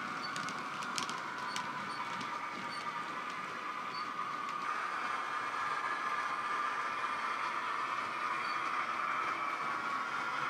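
Model locomotive's DCC sound decoder playing the engine sound through a small on-board speaker: a steady running note that steps up in pitch about halfway through. Light clicks of model wagon wheels on the track sound in the first two seconds.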